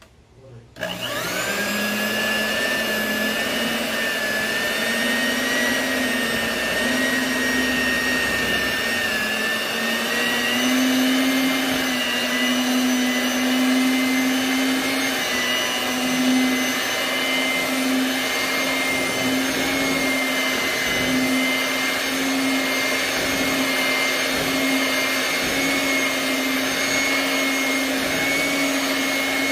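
Electric mixer switched on about a second in and running steadily, a high motor whine that creeps slightly up in pitch, as it beats whipping cream.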